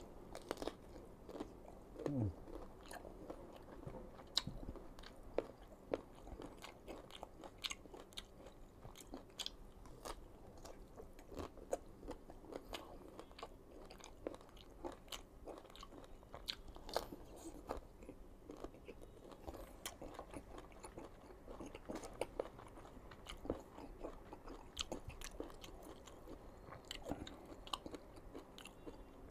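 Close-miked chewing and biting of crisp raw green mango, with irregular crunches and clicks throughout. About two seconds in there is a short sound falling in pitch.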